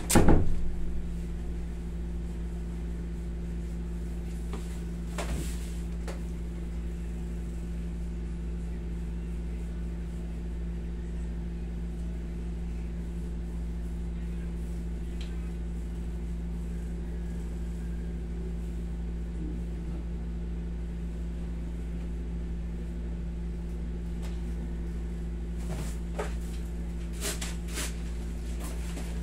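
Steady hum of a window-type air conditioner running, with a sharp knock right at the start and a few faint clicks about five seconds in and again near the end.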